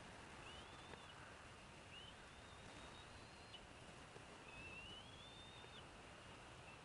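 Faint, thin, high-pitched bird calls, each a brief rise into a held whistle about a second long that stops abruptly, repeated about every two seconds.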